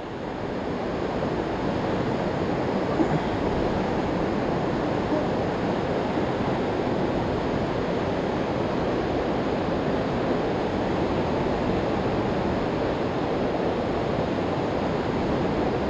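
Steady rush of a fast-flowing river, an even wash of water noise.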